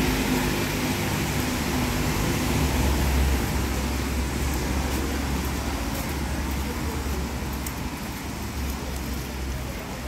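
City street traffic noise: a steady hiss with a low rumble underneath.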